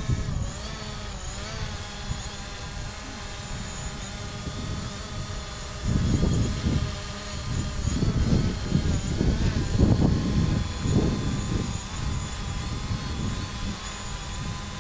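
DJI Mavic Pro quadcopter flying low, its propellers giving a steady multi-pitched whine that drifts slightly in pitch. From about six seconds in, irregular low rumbling bursts come over it for several seconds.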